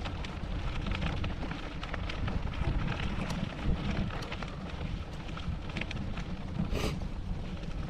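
Bicycle tyres rolling over gravel: a steady crackle of small stones under a rumble of wind on the microphone, with one brief louder rush near the end.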